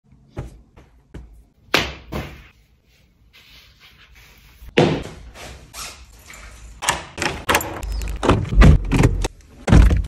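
Rapid string of short handling sounds: taps, clicks and thuds with door-like slams, sparse and faint at first, then denser and louder from about halfway, with heavy low thumps near the end.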